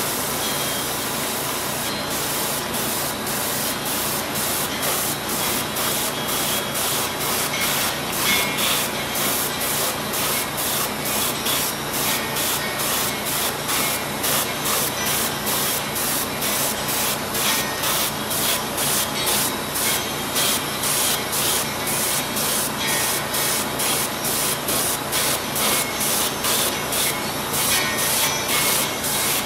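Airbrush spraying paint onto a plastic scale-model part: a steady hiss of air and paint, with a regular pulsing about twice a second.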